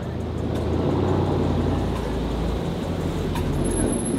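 A car engine running with a steady low rumble.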